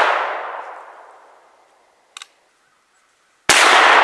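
.50-calibre black-powder muzzleloader rifle shot, its boom fading away over about two seconds. A brief click comes a little after two seconds in, then a second loud blast of the same kind about three and a half seconds in.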